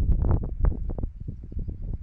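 Wind buffeting the microphone in gusts, with irregular soft knocks and rustles close by; it dies down near the end.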